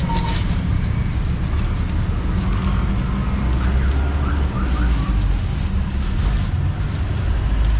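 Steady low rumble of street traffic. A stone pestle scrapes on a stone mortar briefly at the start, and a short warbling tone sounds about four seconds in.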